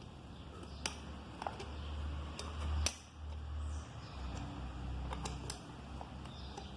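Scattered sharp metal clicks and clinks of hand tools and starter-motor parts being handled during dismantling, a few of them louder, over a low rumble.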